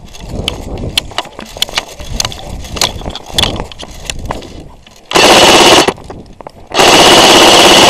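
Airsoft gun firing on full auto close by: a buzzing burst of about a second, then a longer burst from near the end, each with a steady whine. Before the bursts come scattered sharp snaps of single airsoft shots.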